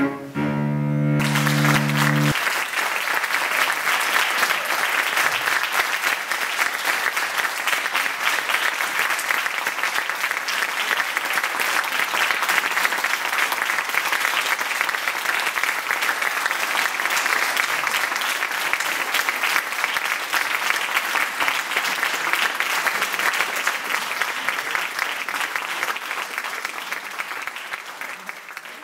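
A cello's final held note rings for about two seconds, then an audience applauds steadily, the applause fading out near the end.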